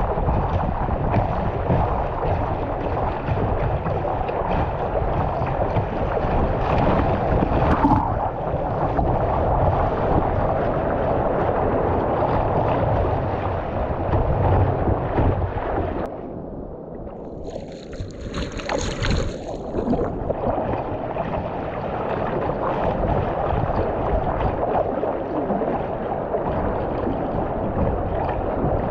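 Wind buffeting the microphone over rushing water while surfing. The noise drops and turns muffled for a few seconds past the middle, then comes back.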